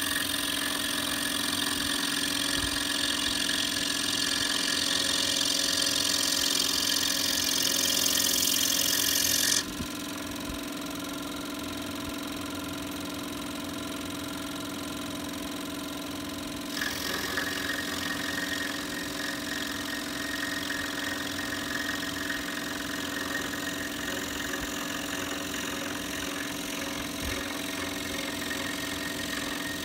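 Scroll saw running steadily, its reciprocating blade sawing through a small wooden block with a hissing rasp over the motor hum. The rasp stops abruptly about ten seconds in, leaving the saw running free, and returns more softly about seven seconds later when cutting resumes.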